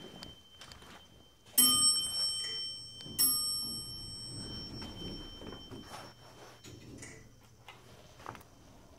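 A bell rings twice, about a second and a half apart. Each strike is a bright, high ring that hangs on and fades over a couple of seconds. Faint knocks and rustling of a handheld phone are heard around the rings.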